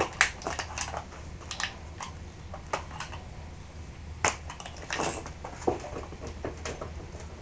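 Irregular metallic clicks and clanks of a hand tool prying at a Kärcher pressure washer's pump assembly, a dozen or so short knocks at uneven intervals.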